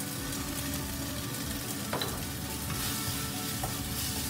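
Minced chicken and red curry paste sizzling in a wok while being stir-fried with a wooden spoon, with a short sharper click of the spoon about two seconds in.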